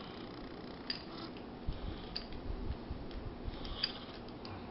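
Light metallic clicks and handling of a 1911 pistol's parts at the muzzle end during reassembly: three sharp clicks, about one, two and nearly four seconds in, with soft thumps of handling between.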